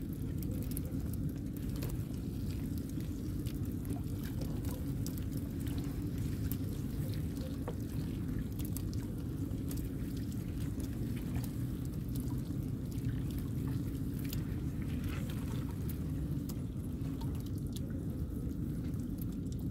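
Wet fine-mesh gill net full of tamban (sardines) being hauled into a boat, with water dripping and many small wet clicks and slaps as fish and net fall in. A steady low rumble sits underneath throughout.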